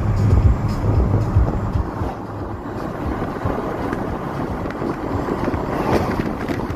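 Road and wind noise inside a moving car, with wind buffeting the microphone in gusts for the first couple of seconds, then a steadier rush.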